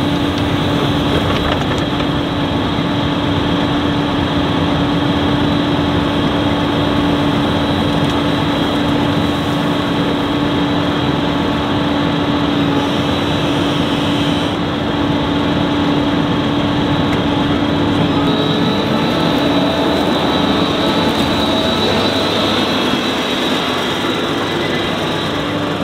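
Claas Jaguar 970 self-propelled forage harvester running steadily with a constant hum while its maize header folds up.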